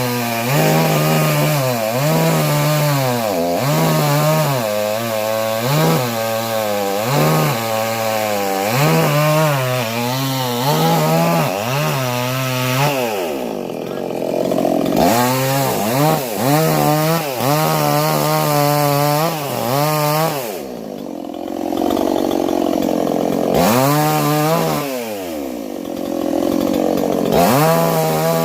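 Chainsaw cutting a tree, its engine revving up and down about once a second, with two softer, lower stretches, one around halfway and one about three-quarters of the way in.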